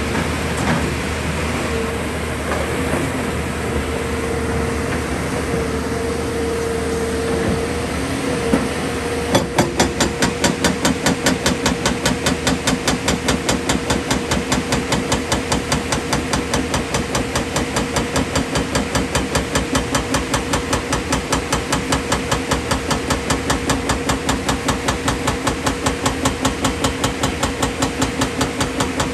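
JCB excavator's engine running steadily with a hydraulic hum. About nine seconds in, its JCB hydraulic rock breaker starts hammering the rock, several blows a second in a fast, even rhythm.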